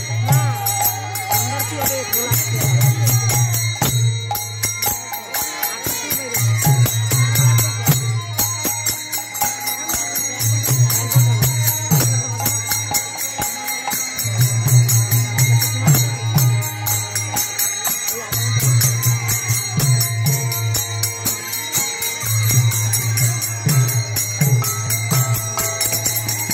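Devotional kirtan music: khol barrel drums beaten in a driving rhythm under fast, continuous clashing of kartal hand cymbals, with voices singing.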